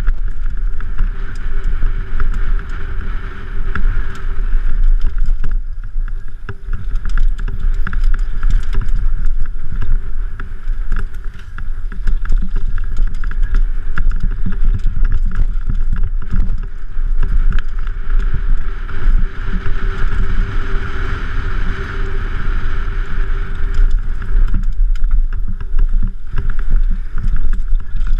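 Heavy wind noise buffeting the microphone, mixed with the continuous rattle and clatter of a mountain bike descending a rough forest trail, tyres rolling over dirt, roots and leaves.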